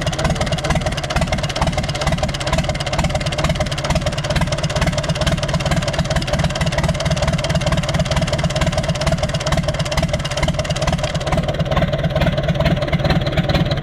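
Universal 550 tractor's diesel engine running steadily at idle with a fast, even pulsing beat. The engine has a noise that the mechanics suspect comes from a faulty injector, or possibly the piston.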